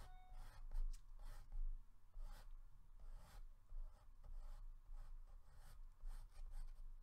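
Water-reactive felt-tip pen scratching across mixed-media sketch paper in a quick, irregular series of short strokes, with a low steady hum underneath.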